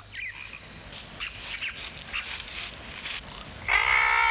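Faint scattered chirps, then near the end a loud, held cartoon-voice 'aah' from a duck character: the wind-up of a sneeze.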